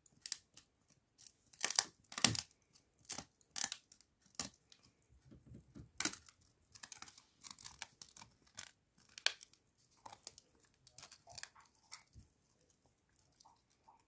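German Pinscher chewing a dried fur-covered chew: irregular sharp crunches, cracks and tearing as the teeth work through it, thinning out near the end as she stops chewing.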